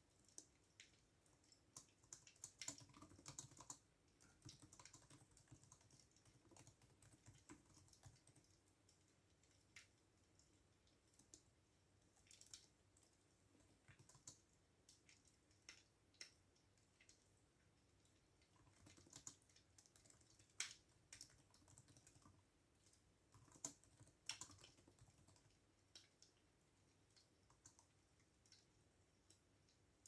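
Computer keyboard typing, faint and intermittent: short runs of key clicks with pauses between, denser bursts near the start and again past the middle.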